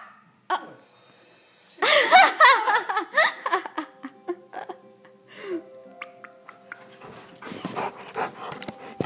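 A Bernese Mountain Dog's vocalizing, with a loud wavering, warbling voice starting about two seconds in. Faint background music with steady held tones follows.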